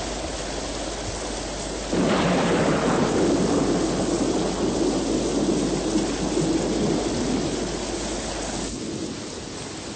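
A roll of thunder breaks in about two seconds in and rumbles on for several seconds, slowly fading, over a steady hiss of rain.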